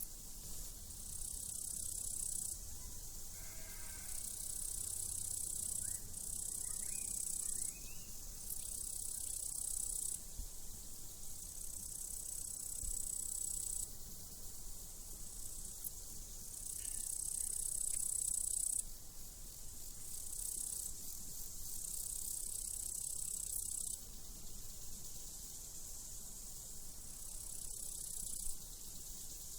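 Crickets chirping in repeated high trills, each lasting one to three seconds with short gaps. A faint sheep bleat comes about three seconds in.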